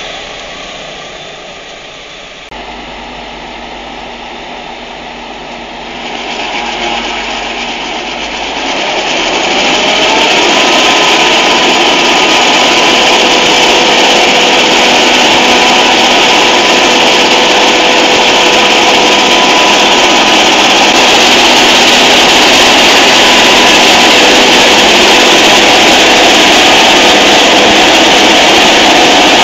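Claas Jaguar 980 forage harvester chopping standing maize, its engine and chopping gear running loud and steady with a constant whine. The first few seconds are quieter machine noise, and the full loud run sets in about ten seconds in.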